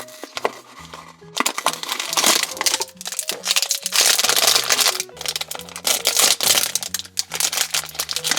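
Blind-box toy packaging crinkling and rustling as it is opened by hand, over background music with a low stepping bass line.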